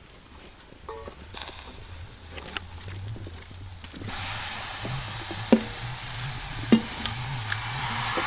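Light handling clicks as mushrooms are tipped from a metal bowl onto a raw chicken in a wok, with two sharp metallic knocks that ring briefly, about halfway through and a second later. A steady hiss comes in abruptly about four seconds in and continues beneath them.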